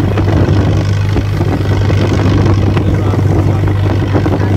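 A motorboat engine runs steadily with a low, constant hum, and wind buffets the microphone.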